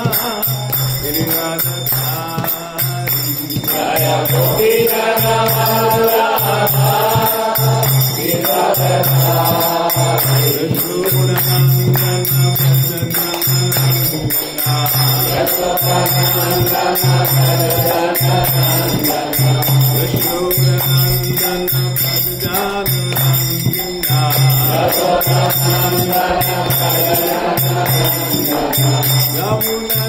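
Devotional mantra chanting: voices sing a melody over a steady, evenly pulsing beat, with jingling percussion.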